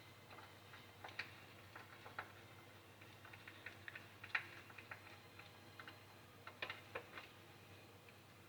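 Faint, irregular light clicks and taps of small parts and tools being handled, over quiet room hum; the sharpest click comes a little past four seconds, with a small cluster near seven seconds.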